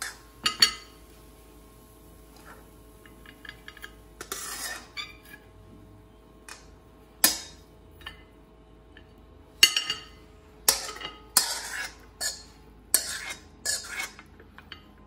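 A metal spoon scraping and tapping against a wok and a stainless steel ring mould as fried rice is spooned out and pressed into the mould. Scattered clinks and scrapes, coming thicker in the last five seconds.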